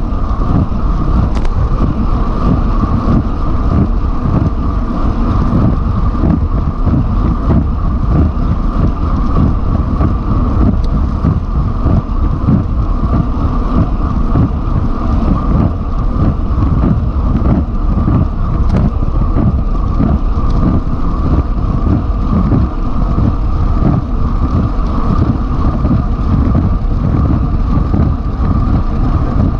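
Steady, loud wind buffeting on a bike-mounted camera's microphone at around 55 km/h, mixed with the rumble of tyres on the road.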